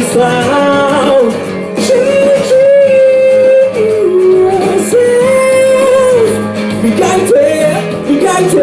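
A man singing into a handheld microphone over strummed acoustic guitar, holding long sustained notes that slide between pitches.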